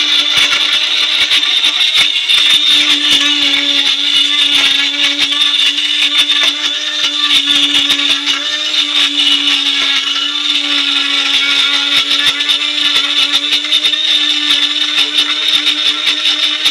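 Borosil portable personal blender's small motor running steadily with a high whine, churning a thick mix of mango, milk and sugar in its jar.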